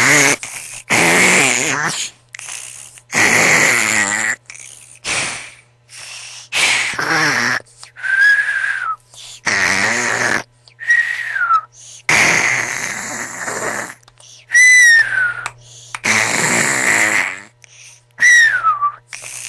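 A person snoring loudly: a quick run of harsh, rasping snores about every one to two seconds. Several of them end in a high whistle that slides down in pitch.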